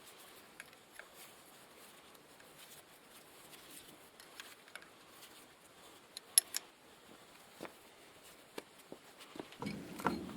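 Scattered faint clicks and taps over a low hiss, with one sharper click about six seconds in and a busier clatter near the end, like small parts or tools being handled.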